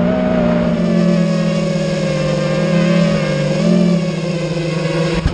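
Small multirotor drone's electric motors and propellers whining steadily, heard close up from the drone itself, with a slight rise in pitch about four seconds in.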